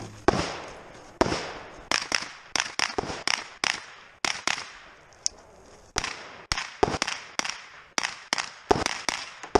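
Semi-automatic rifle fire in a rapid string of about twenty shots, many in quick pairs, with a pause of just over a second near the middle.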